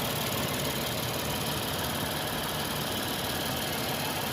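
Lexus IS250's 2.5-litre V6 idling steadily, running normally now that the faulty sensor shorting the 5-volt supply has been replaced.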